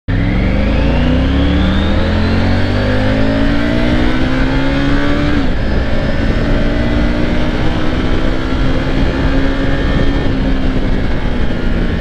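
Triumph Tiger 900 GT Low's 888cc inline-three engine accelerating hard in first gear, revs climbing for about five seconds. A quick upshift into second follows, then a steady pull with the revs rising slowly, under a constant rush of wind.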